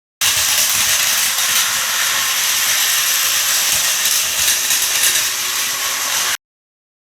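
A loud, steady hissing noise that cuts in abruptly and stops just as abruptly about six seconds later.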